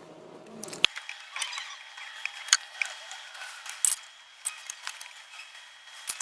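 Light metal clicks and clinks, scattered irregularly, of a flare-nut fitting and tools as a pressure-gauge hose is screwed onto a freshly remade copper pipe flare on a refrigerator's high-pressure line.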